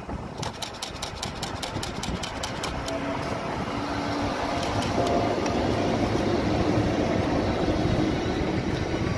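A pair of Class 90 electric locomotives passing at speed with a container freight train. A rapid run of clicks in the first few seconds gives way to a steady electric hum and a rolling rumble of wheels on rail, which grows louder as the locomotives and wagons come alongside.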